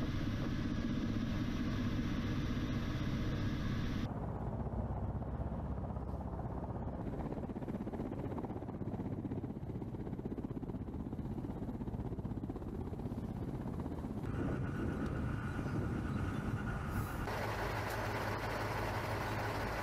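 Kamov Ka-52 attack helicopter's turbine engines and coaxial rotors running steadily, first heard from inside the cockpit, then from outside. The sound changes abruptly a few times.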